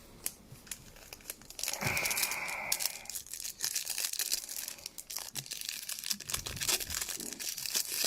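Plastic and foil trading-card packaging being handled: quiet at first, then from about two seconds in a steady run of sharp crinkling and crackling, with a brief tearing burst near the start of it.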